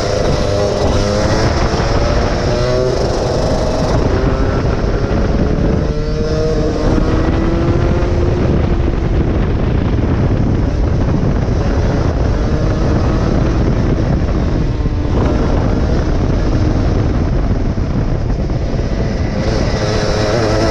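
A 23 hp go-kart engine running hard on the track, its pitch climbing under throttle and dropping off several times, over a heavy low rumble.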